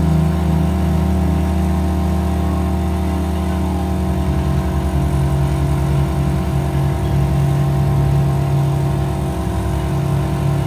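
Large gongs droning: several steady ringing tones over a deep hum that begins to pulse, like gong beating, about four seconds in.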